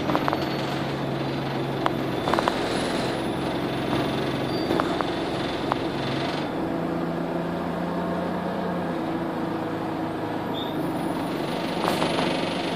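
Alexander Dennis Enviro200 single-deck bus heard from inside the saloon while driving: a steady engine and drivetrain drone whose note steps up about halfway through, with scattered clicks and rattles from the bus's interior fittings.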